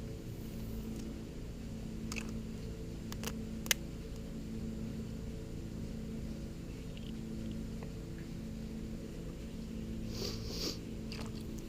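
Light clicks and rustling of a USB port's wire being fed through the plastic bodywork of a motorcycle, over a steady low hum. A few sharp clicks come about two to four seconds in, and a short rustle near the end.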